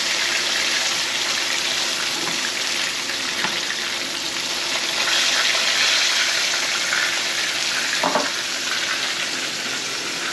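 Battered black drum fillet pieces shallow-frying in a little oil in a skillet: a steady sizzling hiss.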